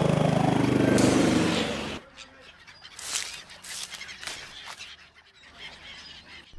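Small model-airplane engine buzzing loudly overhead, cut off abruptly about two seconds in. A much quieter stretch follows with a few brief, scattered calls.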